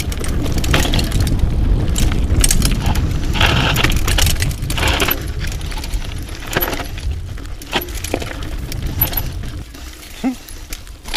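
Mountain bike riding over rough trail: a steady low rumble of wind and ground on the camera microphone, with loose metallic rattling and clicking from the bike's chain and parts. The rumble eases in the last second or so.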